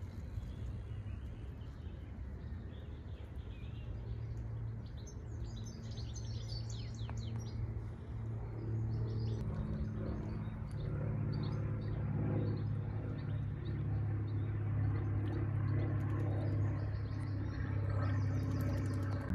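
Small birds chirping and twittering in short high bursts, over a steady low motor drone that grows louder from about halfway through.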